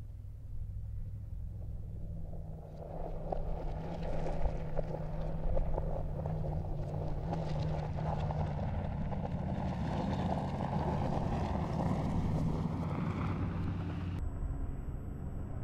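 Mercedes-AMG G63's twin-turbo V8 running steadily as the SUV drives along a dirt track, with a crackle of tyres on loose gravel coming in about three seconds in. The sound changes abruptly near the end.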